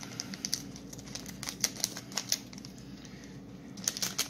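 Irregular light clicks and taps of trading cards being handled, in small clusters, over a steady low room hum.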